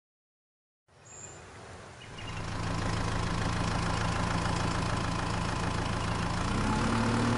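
Sound effect of a motor engine running at idle: it fades in about a second in, then holds a steady hum, its pitch stepping up slightly near the end.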